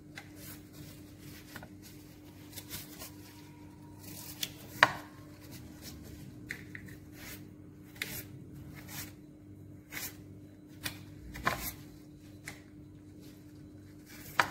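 Kitchen knife slicing raw turmeric root into thin strips on a wooden cutting board: irregular light taps of the blade on the board, with one sharper knock about five seconds in. A faint steady hum runs underneath.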